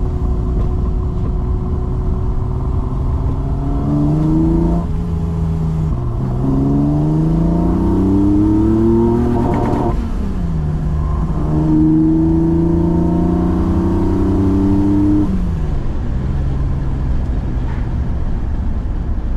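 BMW M30B35 straight-six with individual throttle bodies, heard from inside the E28's cabin, accelerating through the gears: the engine pitch climbs, drops at shifts about six and ten seconds in, climbs again, then falls back as the throttle eases off after about fifteen seconds. It runs on an early standalone-ECU tune that is a little less rich at full throttle, though still rich.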